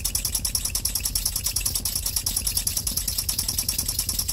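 Three small oscillating model engines running together on compressed air, their exhausts giving a rapid, even stream of hissing puffs over a steady low hum.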